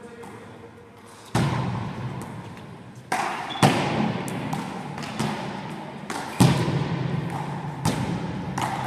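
A one-wall handball rally: the small ball is struck by hand, smacks off the wall and bounces on the floor. About seven sharp strikes come at uneven intervals, each ringing on in the echo of a large hall.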